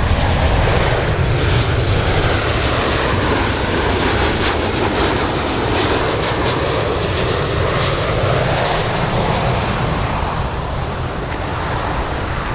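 Boeing 737-800 jet airliner's CFM56-7 turbofan engines on landing approach: a steady, loud jet engine noise with a faint high whine that rises in pitch about two seconds in, easing a little near the end.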